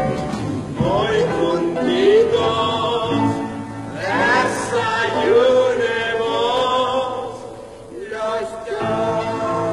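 A musical-theatre song: voices singing over instrumental accompaniment, the level dipping briefly about eight seconds in.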